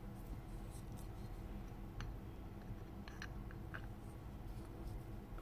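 Faint handling noise of Milwaukee M12 CH hammer-drill gearbox parts being fitted together by hand over a low rumble, with a light click about two seconds in and a few more clicks around three to four seconds in.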